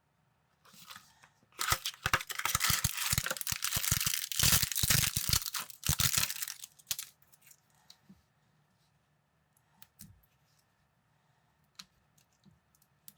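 Plastic parts bag being torn open and crinkled for about five seconds, with sharp clicks mixed in; then a few light clicks of plastic building pieces.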